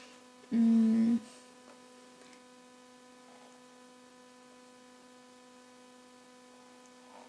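Faint steady electrical hum: a single tone with several evenly spaced overtones. About half a second in there is a louder hum lasting under a second.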